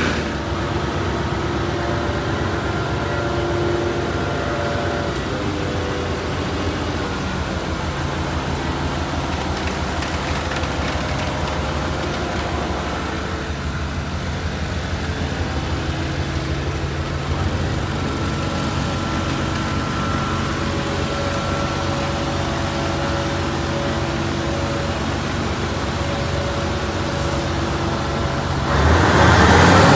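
1999 Suzuki Carry DA52T kei truck's small three-cylinder engine idling steadily, growing louder about a second before the end.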